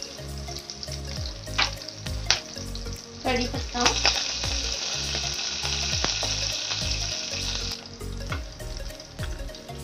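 Cumin, mustard seeds and green chillies frying in hot oil in a nonstick kadhai, sizzling with a few sharp pops and spatula stirring. About four seconds in, curry leaves go into the oil and the sizzle turns much louder and higher for about four seconds, then settles back.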